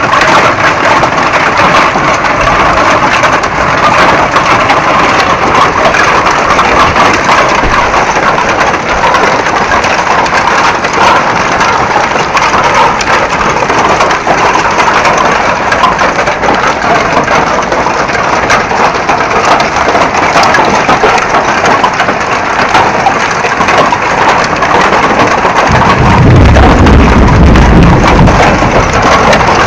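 Hail pelting down: a loud, dense clatter of countless small impacts. A low rumble joins it near the end.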